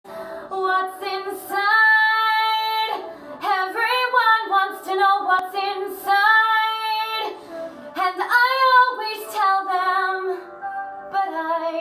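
A woman singing solo, phrases of a slow melody with several long held notes.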